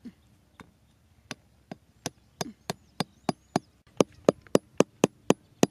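Hammer tapping small wooden stakes into the ground: sharp wooden knocks, a few spaced out at first, then quickening to a steady three or four strikes a second over the second half.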